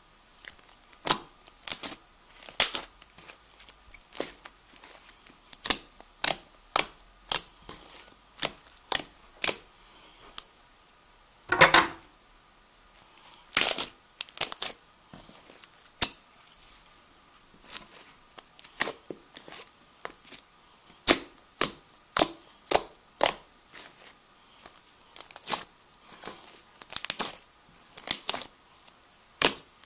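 Fluffy shaving-cream slime being poked, squeezed and stretched by hand, making a string of sharp wet pops and crackles about one or two a second, with one louder pop a little before halfway.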